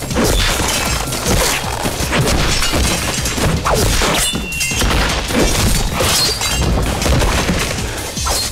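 Battle sound effects for an animated fight: a dense, continuous din of crashes and thuds.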